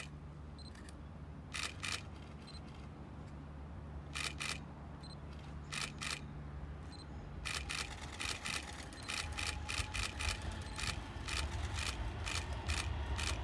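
Camera shutters clicking, a few at a time, then in fast bursts from about seven seconds in, over the low rumble of an approaching electric train that grows louder near the end.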